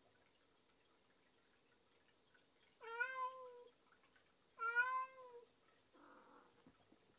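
A domestic cat meowing twice, each meow a little under a second long and about a second apart. A faint, brief rustle follows near the end.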